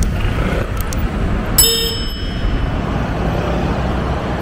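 A single sharp metallic clang about one and a half seconds in, ringing briefly with several tones, over steady city street traffic noise.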